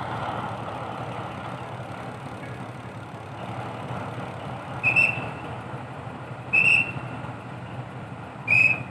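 Diesel locomotive idling with a steady low rumble. Three short, shrill whistle blasts sound over it, evenly spaced about two seconds apart in the second half, each a single high note.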